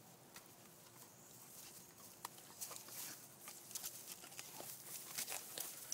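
Faint rustling and light scattered clicks of a Labrador and an iguana shifting on dry palm frond and grass, sparse at first and more frequent from about two seconds in.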